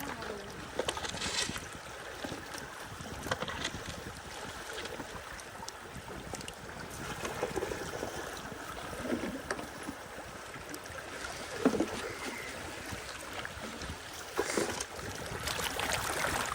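River water rushing and lapping around a bamboo raft drifting downstream, with a few short splashes and knocks along the way.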